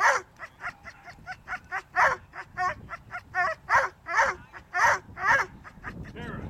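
Leashed whippets yelping in a rapid run of short, high, repeated cries, about two or three a second, with a brief lull near the end. These are the excited yelps of coursing dogs held back, eager to chase the lure.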